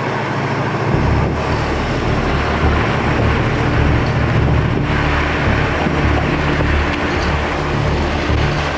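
Car driving along a road: steady road and wind noise, with a low rumble that comes in about a second in.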